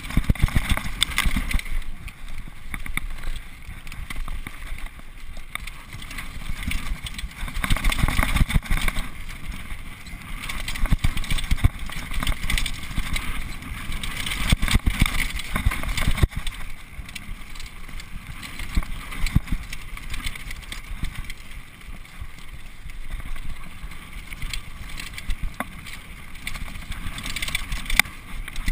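Xprezo Furax downhill mountain bike ridden fast down a rough dirt trail: steady rush of wind on the microphone and tyres on dirt, with constant rattling and clattering from the bike and chain and sharper knocks as it hits bumps.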